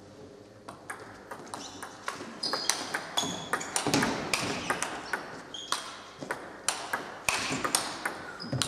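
Table tennis rally: the celluloid ball clicking back and forth off the rubber paddles and the table in quick succession. Short high squeaks come from the players' shoes on the wooden floor.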